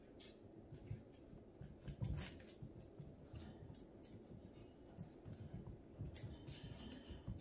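Faint, irregular scratching and light taps from a puppy's paws scrabbling on a mesh raised dog cot as it pounces at a rubber ball, the loudest scuffle about two seconds in.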